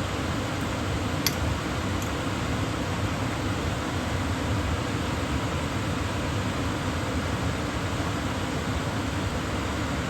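Microwave oven running with a steady hum, with two small clicks in the first two seconds.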